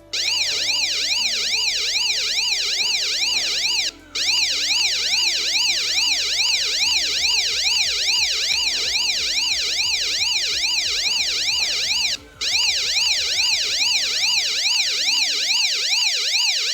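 Arduino-built electronic police siren: a buzzy tone rapidly sweeping up and down in pitch, several sweeps a second. It cuts out briefly twice, about four seconds in and again about twelve seconds in.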